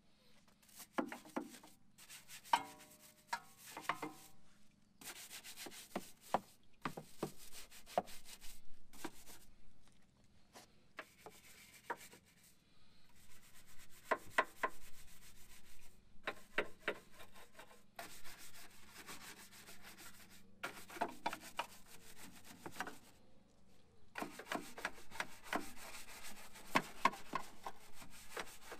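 Scrubbing: a brush or cloth rubbing hard against a surface in irregular bursts of strokes with short pauses, and a brief squeak about three seconds in.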